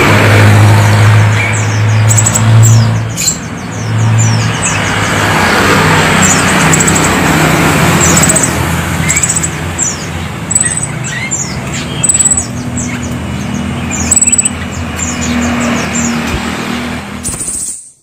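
Pentis raja flowerpeckers chirping: many short, thin, high notes, each falling quickly in pitch, in rapid runs over steady traffic noise. A low engine hum is strong for the first few seconds. The sound cuts off abruptly near the end.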